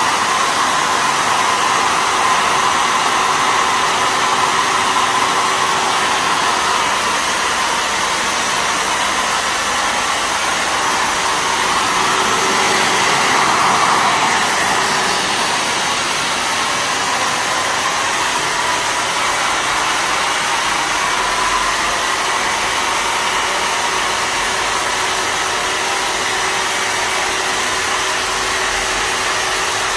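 Electric ULV cold fogger's blower motor running steadily, pushing out a dense disinfectant mist with a loud, even rushing whir.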